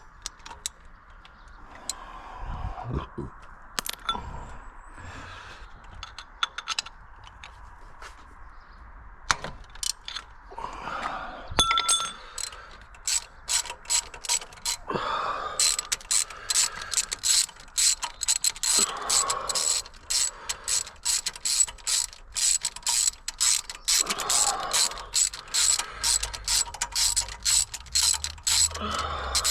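Hand ratchet wrench clicking on a fastener: a few scattered clicks at first, then rapid, steady ratcheting from about halfway through.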